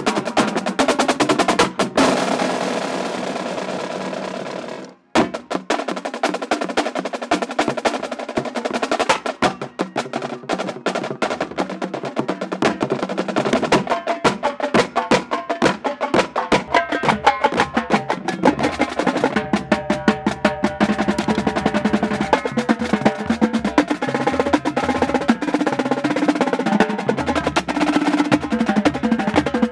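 Marching drumline playing fast, dense rhythmic patterns on snare, tenor and bass drums. A sustained roll from about two seconds in cuts off sharply near five seconds, then rapid strokes start again.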